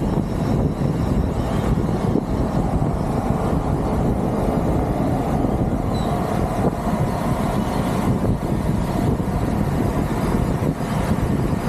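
Steady rushing wind and road noise on the microphone of a moving bicycle, buffeting at the low end without a break.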